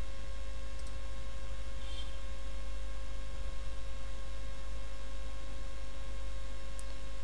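Steady electrical mains hum in the recording, with a few very faint clicks.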